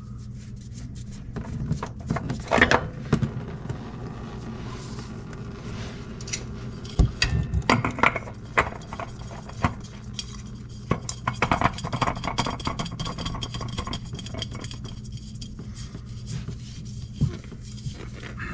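Hands removing and threading on a metal cartridge transmission oil filter under a compact tractor: scattered metallic clinks, scrapes and clatters in clusters, over a steady low hum.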